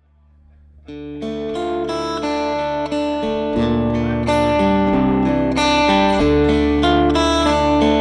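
Rock band playing live: two electric guitars play an instrumental intro of held, bluesy notes over a low bass line. The guitars start about a second in, and the bass grows heavier about halfway through.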